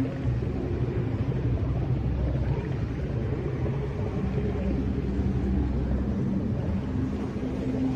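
Ambient 'space sound' drone: a low rumble under long held low tones that swell and fade. It is presented as electromagnetic emissions recorded from orbit and converted into audible sound.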